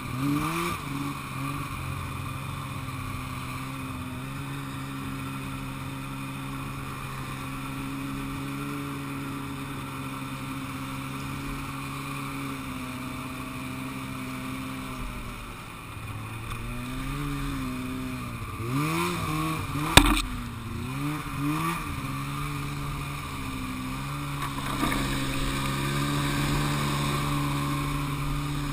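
Polaris two-stroke snowmobile engine running at steady throttle along a snowy trail, then the revs rise and fall for several seconds with one sharp knock in the middle, before settling back to a steady pull that picks up slightly at the end.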